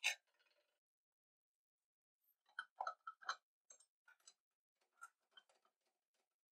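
A sharp click, then a run of light clicks and knocks, loudest about three seconds in, thinning to scattered faint ticks: small hard parts being handled.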